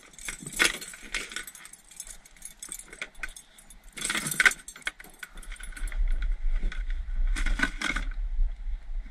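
Metal snap clips of a fish stringer jangling and clinking as it is handled, in three bursts: about a second in, around four seconds, and near eight seconds. A low rumble sets in about five seconds in.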